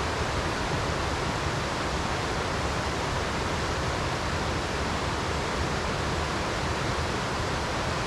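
Steady rush of a waterfall's falling water, an even hiss with no breaks.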